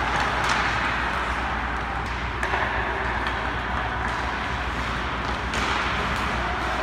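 Ice hockey practice: skates scraping on the ice and scattered sharp clacks of sticks and pucks, over a steady low hum in the arena.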